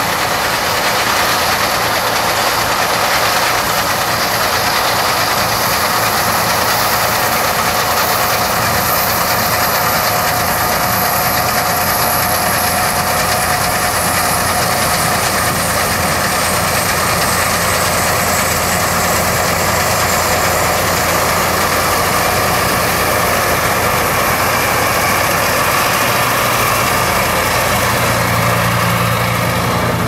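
New Holland 8080 combine harvester running steadily while cutting and threshing wheat: a constant machine drone with a steady whine from the threshing gear over it. The engine's low note grows stronger near the end.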